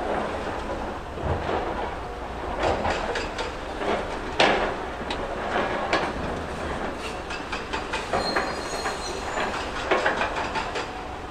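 Hydraulic excavators loading rock into steel dump-truck beds: diesel engines running steadily under irregular clattering and banging of broken rock falling and knocking against steel, with one loudest bang about midway. A short high squeal sounds about three-quarters through.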